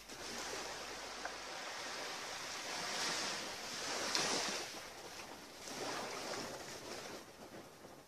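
Small waves lapping and washing onto the shore, swelling and ebbing a few times, loudest about four seconds in.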